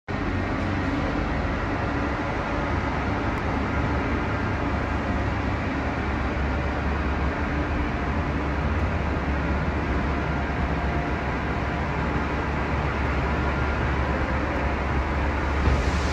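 Steady low rumble in a parking garage as a Tesla electric car, called out by phone app, pulls slowly out of its parking space by itself.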